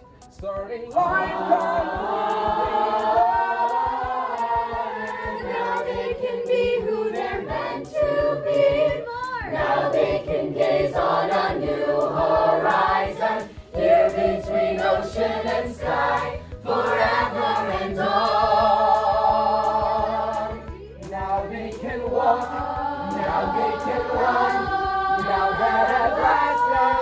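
Large group of children and teenagers singing a song together in chorus, with a short break in the singing about halfway through.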